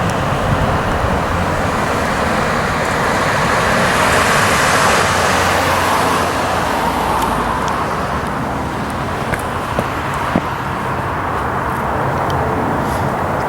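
Steady rushing roar of a passing vehicle, swelling a few seconds in and easing off, with a few faint ticks near the end.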